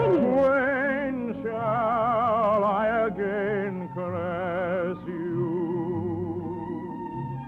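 Operatic singing from an operetta: a trained voice holds a series of notes with wide vibrato over orchestral accompaniment, heard through a vintage radio recording.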